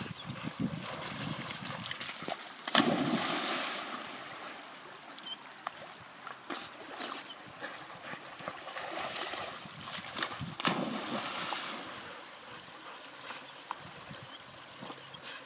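Water splashing and sloshing as a German shorthaired pointer swims across a creek, over the steady wash of the flowing stream. The splashing swells twice, about three seconds in and again around eleven seconds.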